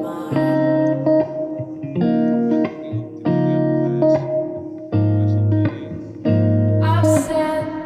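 Background music: a pop song's instrumental passage with guitar and keyboard chords changing about once a second.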